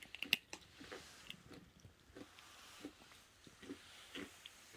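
A kitten chewing and crunching dried banana chips, with irregular small crunches; the loudest comes just after the start.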